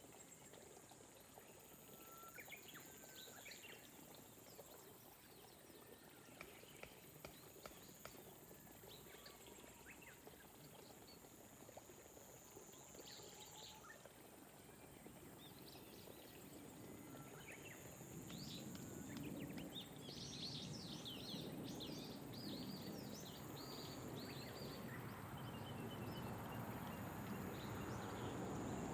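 Soft ambience of rain over rice paddies: a steady high insect trill and scattered small bird chirps, with a gentle rain hiss that grows louder in the last third.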